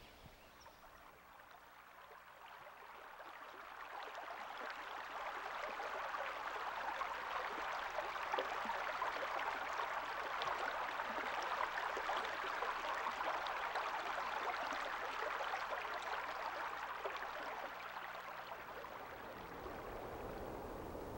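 Steady rushing, crackling hiss like running water, fading up over the first few seconds and easing a little near the end.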